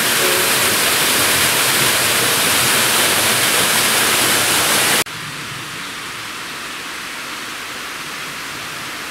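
Rushing water of a small waterfall falling over sandstone rocks close by, a loud, steady rush. About five seconds in it cuts off abruptly to a quieter, steady rush of the stream in the gorge.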